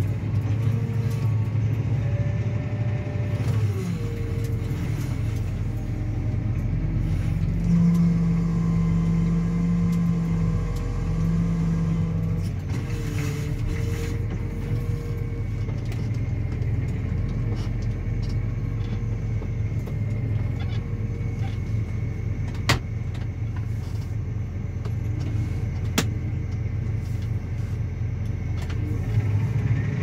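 Claas Axion 850 tractor's diesel engine running steadily under ploughing load while pulling a reversible plough, heard from inside the cab. A stronger steady tone comes in for a few seconds about a third of the way through, and two sharp clicks sound in the second half.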